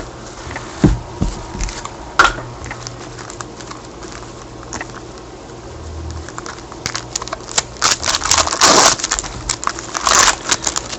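Trading-card pack wrapper crinkling and tearing in gloved hands as a pack is opened, with cards shuffled against it. A few soft knocks come in the first couple of seconds, and the crinkling grows louder and denser from about seven seconds in.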